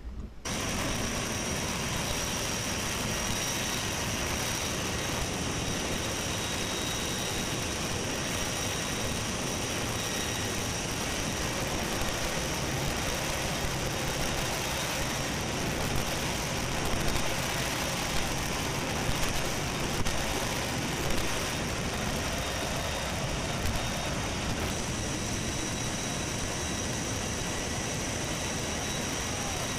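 Inside a C-17 Globemaster III's cargo hold with the paratroop door open: the four turbofan engines and the air rushing past the doorway make a steady, loud rushing noise with a thin high whine. It cuts in suddenly at the start.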